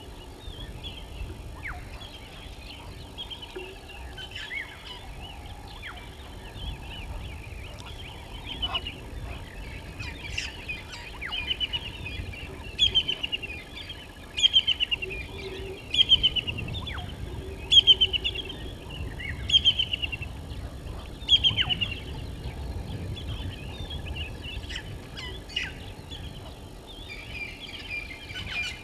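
Helmeted guineafowl calling: a run of harsh, rapidly pulsed rattling calls, one about every one and a half to two seconds, loudest in the middle of the stretch, with fainter chatter before and after.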